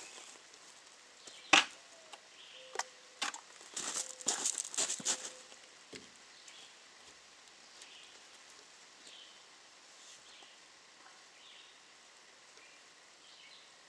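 Bricks knocking and clinking against each other as they are set by hand: one sharp knock about a second and a half in, two more soon after, then a quick run of knocks and scrapes around four to five seconds in. Faint bird chirps sound in the background.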